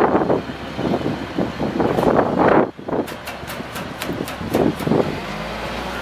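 Digger derrick truck's Caterpillar 3126 diesel engine running the hydraulics while the boom moves, the sound swelling and easing unevenly. A quick run of about eight sharp clicks comes between three and five seconds in.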